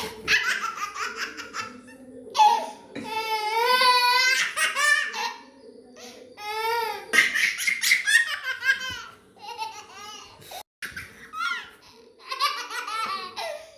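A baby laughing in repeated bursts of high-pitched giggles and squealing belly laughs, with short pauses between them.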